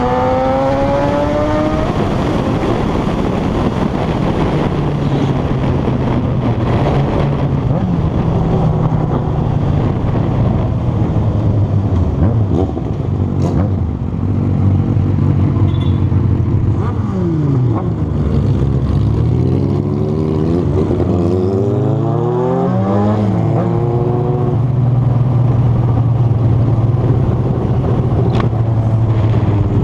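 Inline-four sport motorcycle engines under way, pitch climbing as they accelerate at the start, then holding a steady engine speed. About seventeen seconds in, the pitch drops and climbs again several times through the gears before settling back to a steady tone.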